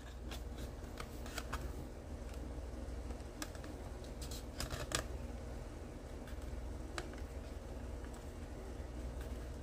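Light, scattered clicks and taps of a plastic scale-model car's interior tub being pressed and seated into its body shell, its tabs locating in place, over a low steady hum.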